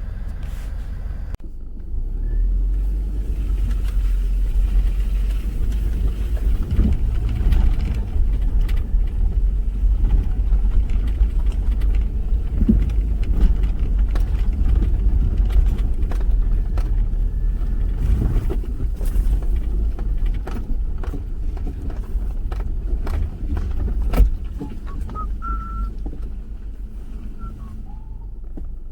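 Subaru Forester driving slowly over a rough forest trail: a steady low rumble of engine and tyres, with scattered knocks and clicks from the bumpy ground and one sharper knock about five seconds before the end.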